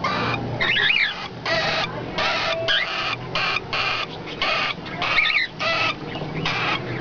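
Two-month-old cockatiel chicks calling over and over with short raspy chirps, about two a second, some with quick rising and falling whistles in them.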